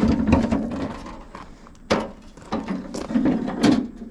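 Knocks and clunks of a tractor's body panels being handled and set in place, with three sharper knocks among lighter rattling.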